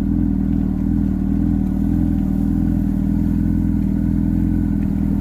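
A vehicle engine running at a steady speed, giving an even low hum with no revving.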